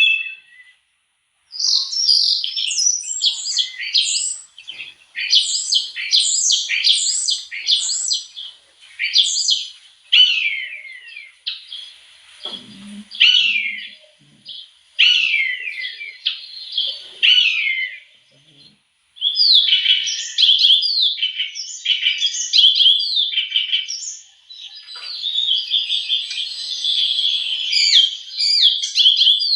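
Birdsong: rapid phrases of quick, falling chirps and whistles, one after another, with a short break after the first second or so and another about two-thirds of the way through.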